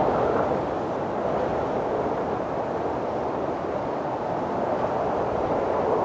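Steady rushing wind, an even noise that eases slightly just after the start and swells a little again near the end.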